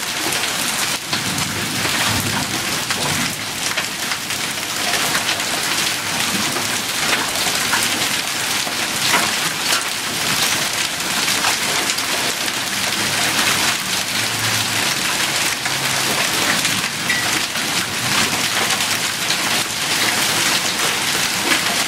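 Hail and heavy rain pelting a wet concrete yard: a dense, steady hiss dotted with many small sharp ticks of hailstones striking.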